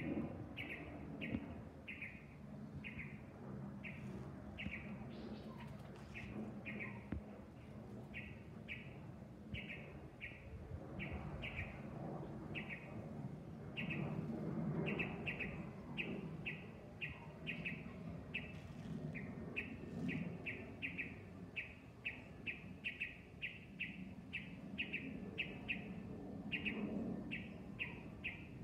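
A bird chirping over and over, short high chirps about two to three a second, over the low rumble of an Airbus A320's CFM56 jet engines passing high overhead. The rumble swells about halfway through.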